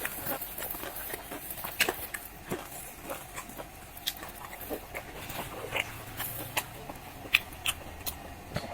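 Close-miked chewing of fried dough sticks, with scattered short clicks and soft crunches from the mouth, a few each second.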